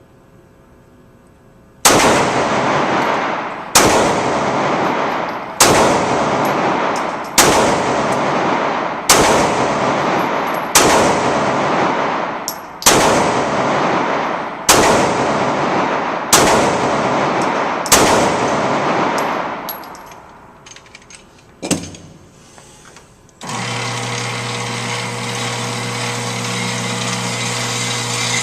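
Ten shots from a Ruger SR9 9mm pistol firing Winchester 115-grain rounds, slow aimed fire about one shot every two seconds, each ringing on in an indoor range's echo. Near the end, a click and then a steady mechanical hum.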